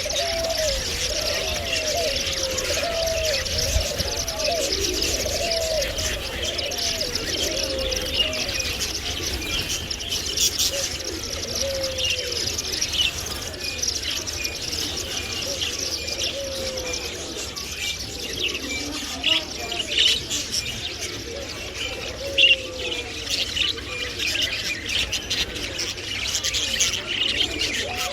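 Many small caged birds chirping at once in a dense, continuous chatter. Low, wavering cooing calls repeat over the first several seconds and return a few times later.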